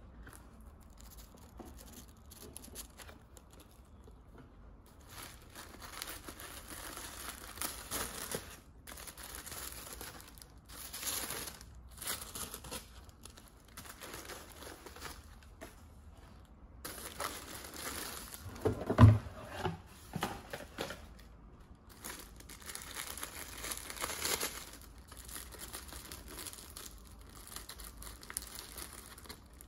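Tissue paper rustling and crinkling in bursts as hands fold it back and unwrap a tissue-wrapped handbag, after a few quieter seconds of handling a cardboard box. A single dull thump stands out a little under two-thirds of the way through.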